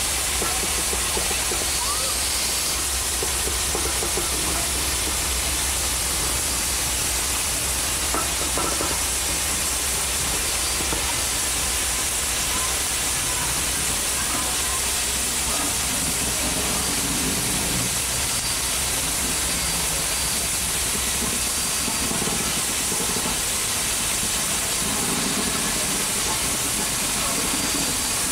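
Steady hiss of steam escaping around the cylinders of Southern Pacific GS-4 4-8-4 steam locomotive #4449.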